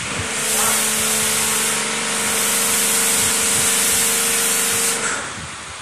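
High-pressure washer spraying a hissing jet over a foam-covered car, with a steady hum from the washer's pump underneath; the spray cuts off about five seconds in.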